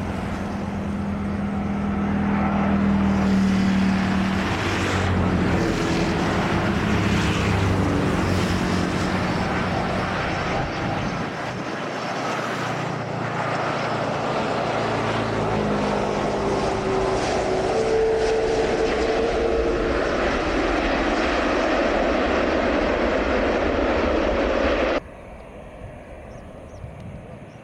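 Airbus A330-300 airliner's Rolls-Royce Trent 700 jet engines running as it comes in to land, with low steady engine tones at first. A broad rushing engine noise follows during the landing roll, and it cuts off suddenly near the end, leaving quieter background sound.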